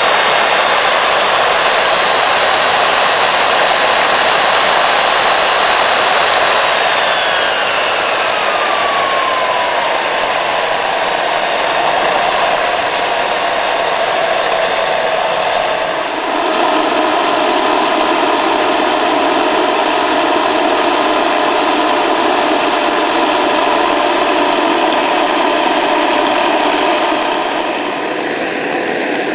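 GR-5 DIY twin-spool turboshaft engine, built around a T3-T4 Rotomaster hybrid turbocharger, running loud with a steady rush and a high turbine whine. About seven seconds in, the whine falls in pitch as the engine slows, then settles at a lower steady pitch.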